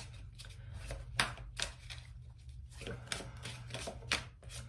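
Tarot cards being handled and shuffled: a few short, sharp card snaps and flicks at uneven intervals, over a low steady hum.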